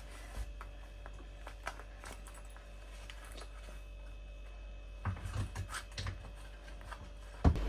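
Quiet small-room tone with a low steady hum, scattered light clicks, a few knocks about five seconds in, and one sharper knock near the end.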